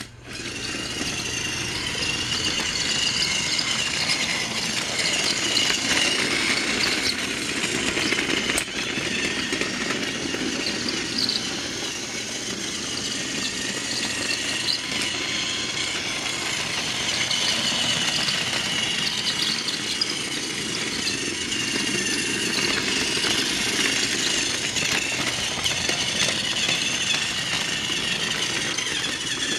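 Battery-powered Thomas & Friends TrackMaster toy train running on plastic track: a steady electric motor whir with its wheels rattling along the rails. It grows a little louder and softer as the train circles the layout.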